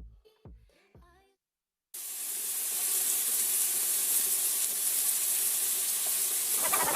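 Dance music cuts out, then after a brief dead silence a steady hissing noise, like a spray or steam sound effect in the music mix, comes in abruptly and runs for about five seconds before the next song starts.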